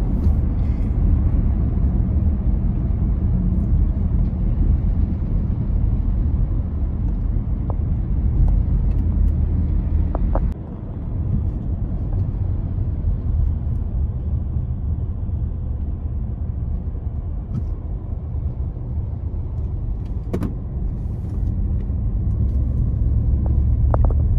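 Road noise and engine hum heard from inside a moving SUV: a steady low rumble that dips briefly about ten seconds in, with a few faint clicks.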